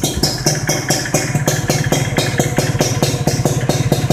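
Modenas Dinamik 120 motorcycle engine idling through an RRM (Rudi Racing Muffler) aftermarket racing exhaust, a steady, even run of quick exhaust pulses.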